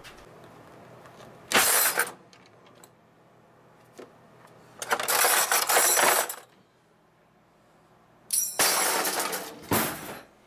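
Metal cutlery clattering and rattling in a kitchen drawer's plastic tray as a spoon is rummaged for, in three bursts.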